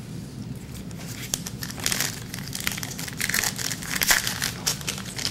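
Trading card pack wrappers crinkling as packs are torn open and handled, an irregular crackle that gets busier after the first second or so.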